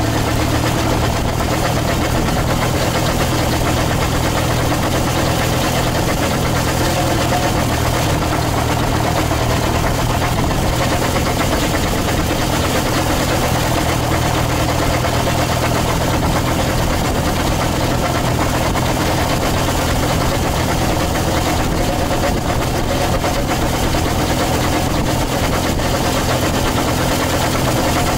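Farm tractor's diesel engine running steadily as it carries a mounted fertilizer spreader across the field, a constant even drone with no change in pace.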